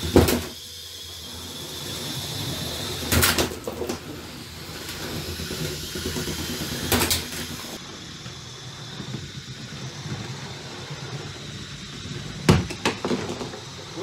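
Lego combat robots clashing: a steady whir from the spinning weapon and drive motors, broken by sharp plastic impacts at the start, about three seconds in, about seven seconds in, and a quick run of hits near the end.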